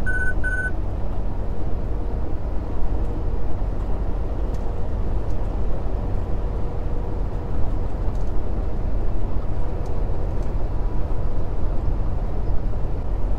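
Steady low rumble of a semi truck's diesel engine and tyre noise, heard inside the cab while cruising at highway speed. Three short high beeps sound right at the start.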